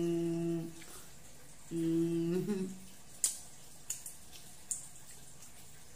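A woman's closed-mouth "mmm" hum while eating, twice, the second ending in a downward slide; then three short sharp clicks a little over half a second apart.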